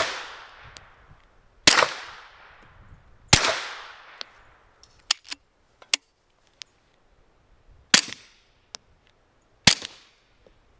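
A Glock 48 MOS 9mm pistol fired through a SilencerCo Omega 9K suppressor. Three shots come about a second and a half apart, each with a long fading echo. After a pause of about four seconds come two more shots, with a few faint clicks in between.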